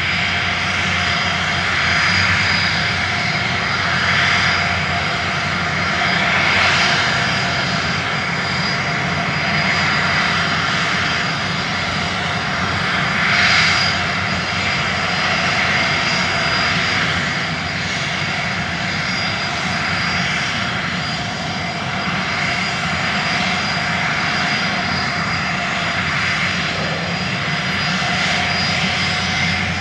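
Steady mechanical whirring, like small motors running with rushing air, swelling and easing every couple of seconds, with a thin high whine throughout.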